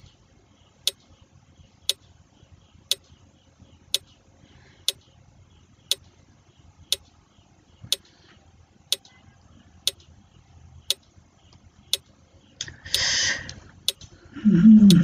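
Quiz countdown timer's clock-tick sound effect, one sharp tick about every second. About two seconds before the end a short hissy burst sounds, then a man's voice.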